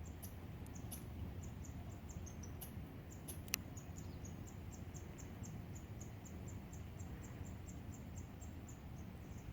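Faint high-pitched chirping, evenly repeated about three or four times a second, over a low steady outdoor rumble, with one sharp click about three and a half seconds in.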